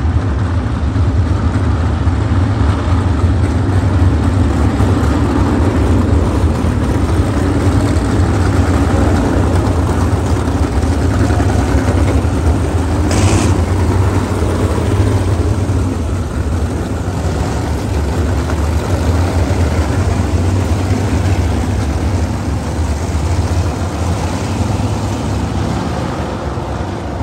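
Winged sprint cars' V8 engines running as a pack on a dirt oval, a steady low drone, with cars passing close by about 13 seconds in.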